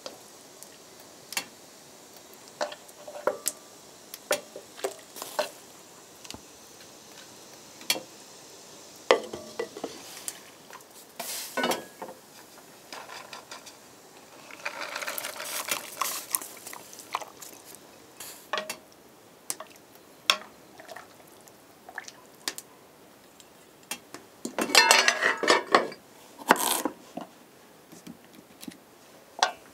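Cooking at a cast-iron cookstove: a metal pot, its lid and a clay bowl clinking and knocking, with scattered sharp clicks. There are two longer bursts of clatter and scraping, one about halfway through and a denser one near the end.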